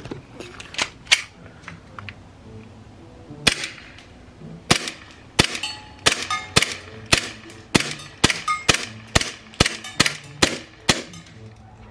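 Umarex Beretta M9A3 CO2 blowback BB pistol firing: a few faint clicks at first, then from about three and a half seconds in a string of about twenty sharp shots, unevenly spaced at two to three a second and coming faster toward the end.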